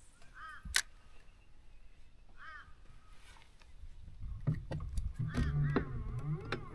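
Short arched bird calls, repeated a few times, over clicks and knocks from a spinning rod and reel being handled as a jerkbait is worked. About four seconds in, a low rumble and a run of denser clicks grow louder.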